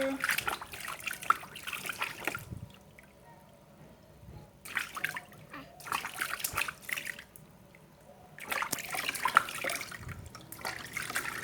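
Water poured and splashing over a toddler during a bath, in several bursts a second or two long with quieter pauses between.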